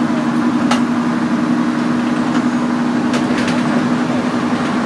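Moving bus heard from inside the cabin: a steady low engine hum, with a few short sharp rattles about a second in and again around three seconds in.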